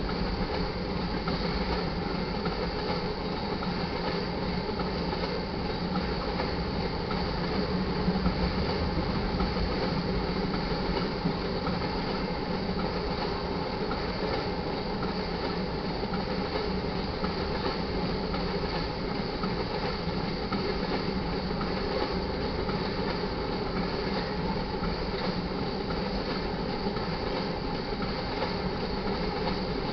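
Freight train of crude-oil tank cars rolling steadily past, steel wheels running on the rails.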